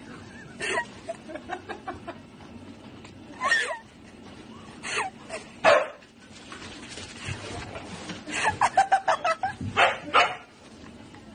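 A dog barking and whining in short, separate calls, with a quick run of yaps a little past the middle.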